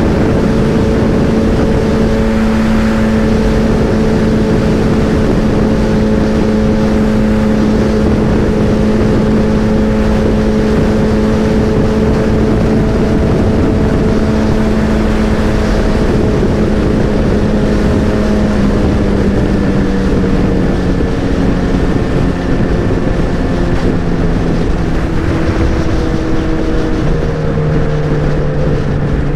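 Motorcycle engine running at steady cruising speed, with wind rushing over the microphone. The engine note holds one pitch, then drops lower in steps over the last ten seconds.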